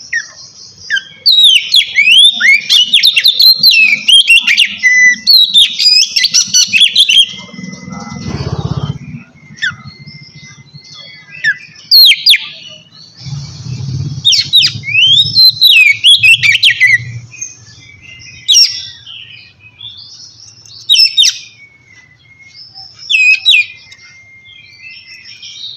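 Oriental magpie-robin (kacer) singing in loud, rapid bursts of sweeping whistled and chattering phrases, with short pauses between the bursts.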